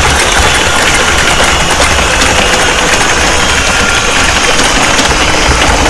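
Loud, steady engine-like rumble under a dense noisy hiss, with faint scattered clicks.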